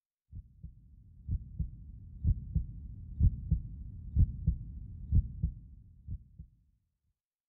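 Heartbeat sound effect: a slow lub-dub of paired low thumps, about one beat a second, over a low rumble. It grows louder and then fades out near the end.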